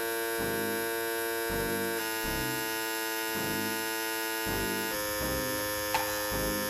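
Philips OneBlade 360 trimmer running unloaded on its battery: a steady electric buzz with many overtones, its tone shifting slightly twice. A short click comes about six seconds in.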